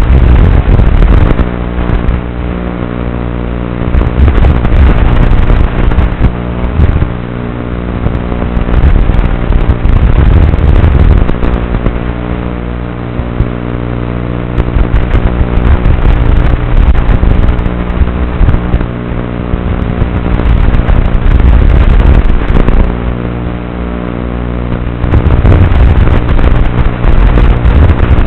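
Blade Inductrix tiny whoop's micro motors and ducted props whirring loud and close, surging every few seconds as the throttle is pushed and eased, over a steady buzz.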